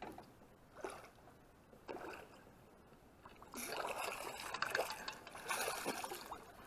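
Water splashing as a hooked bass thrashes at the surface near a small aluminium boat. It is faint and sparse at first and grows busier and louder about halfway through.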